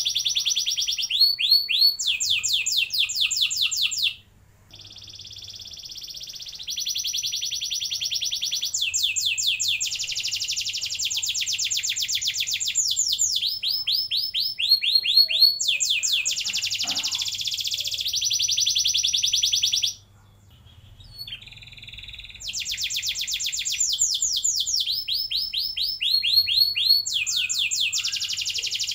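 Domestic canary singing a long rolling song: runs of rapid, repeated high sweeping notes and fast trills, one phrase flowing into the next. It breaks off briefly about four seconds in and again about twenty seconds in, then resumes.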